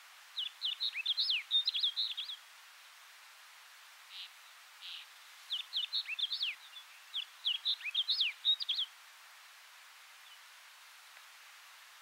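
Snow bunting singing: three short, rapid phrases of clear high notes with quick downward slurs, the second and third close together.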